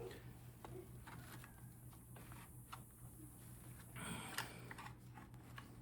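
Faint scattered metal clicks from hand tools working on a Daisy air rifle's spring mechanism, with a short scrape about four seconds in, over a low steady hum.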